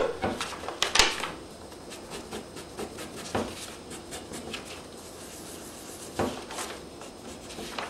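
Pencil sketching on paper, a run of short scratchy strokes, with sheets of animation paper rustling and tapping as they are lifted and flipped near the start.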